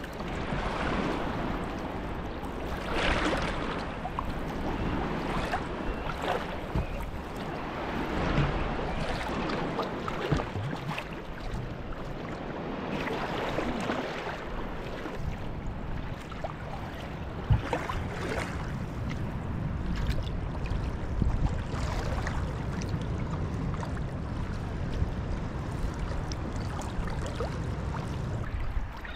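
Kayak paddle strokes dipping and splashing in choppy sea water, a swell of splash every couple of seconds, over a steady low rumble.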